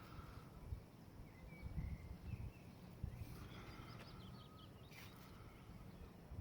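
Small birds chirping in short quick calls a few times, between about one and a half and four seconds in, over a low outdoor rumble.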